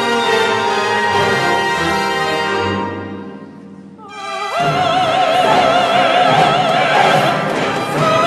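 Orchestra playing, dying away about three seconds in. After a brief lull an operatic soprano enters over the orchestra, holding long notes with a wide vibrato, in a piece sung in ancient Egyptian.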